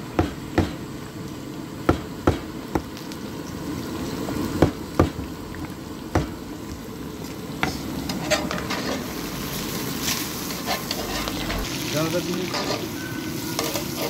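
A long knife chopping fried pieces on a wooden tree-stump block: sharp, irregular knocks about every half second to second. From about eight seconds in, hot oil sizzles steadily in a wide pan as the pieces are fried again and moved about with a ladle.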